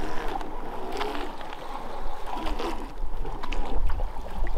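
Small radio-controlled boat with an electric motor running in close with a thin steady whine. Underneath are the rumble of wind on the microphone and water washing against rock, with a few small knocks.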